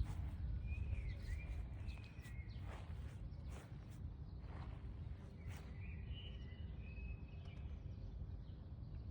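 Low, steady outdoor background rumble with two spells of faint bird chirping, about a second in and again around six seconds in, and a few light clicks.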